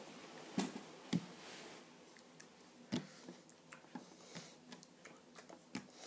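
Four sharp taps and clicks, with fainter ticks and rustles between them, from hands and sleeves moving while signing at a table in a small, quiet room.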